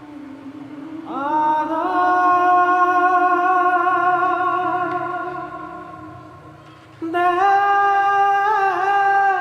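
Background music: a wordless vocal line holding long notes, the first swelling in about a second in and fading away, the second coming in sharply about seven seconds in and held with a slight wobble.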